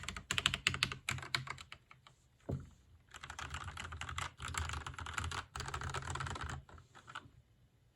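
Gamakay LK67 mechanical keyboard with Gateron Yellow linear switches being typed on: a quick run of keystrokes, one louder stroke about two and a half seconds in, then a long fast burst of typing from about three seconds in that thins out and stops near the end.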